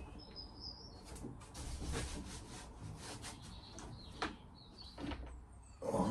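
Solar cable being worked up through a gap between ceiling panels by hand: irregular rubbing and scraping against the panels, with a sharper knock about four seconds in.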